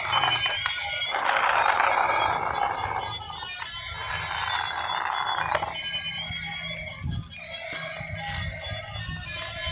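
Electronic sounds from battery-operated toy animals: tinny beeping tones like a small toy tune, with a rougher rasping sound from about one to six seconds in.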